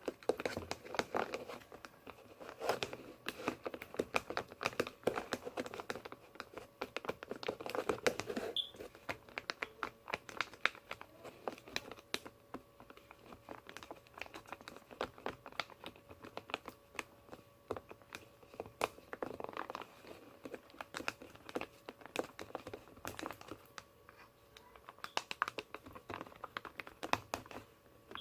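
A mixing tool stirring glue, paint and glitter in a container for slime: irregular clicks and scrapes of the tool against the container, coming in quick runs throughout.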